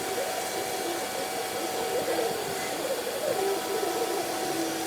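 Milling machine running steadily while cutting: a constant whirring hum with a wavering higher tone that shifts as the cutter works.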